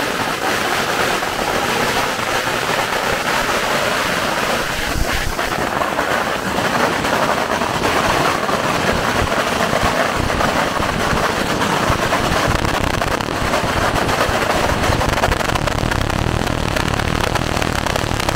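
A long string of firecrackers going off in a continuous rapid crackle, starting suddenly.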